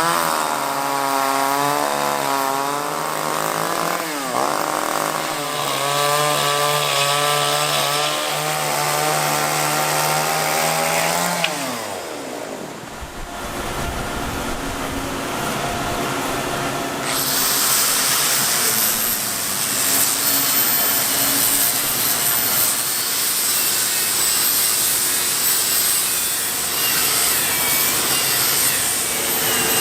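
Power saw cutting wood, its motor pitch wavering under load, then winding down about 11 seconds in. After a short lull, a different noisy machine runs with a high whine from about 17 seconds.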